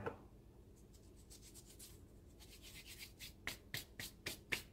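Fingertips rubbing together, crumbling saffron threads over the food. It is a run of short dry rasps, faint and sparse at first, then sharper at about four a second in the second half.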